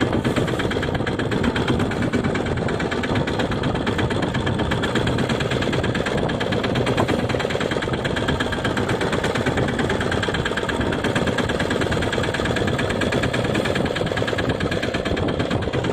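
A fishing boat's engine running steadily with a fast, even beat.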